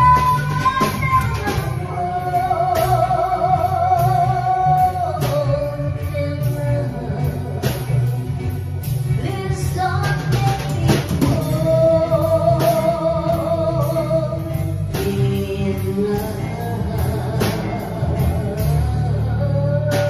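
A woman singing into a microphone over a band accompaniment with drums, holding long notes with vibrato.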